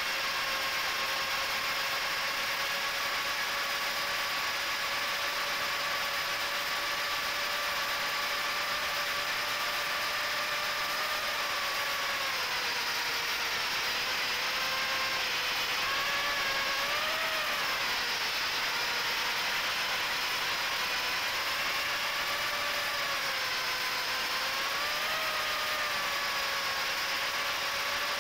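Micro quadcopter's HGLRC 1104 7500kv brushless motors spinning Gemfan 3018 props, heard from the quad's onboard camera: a steady whine over a hiss, whose pitch dips and rises several times in the second half as the throttle changes.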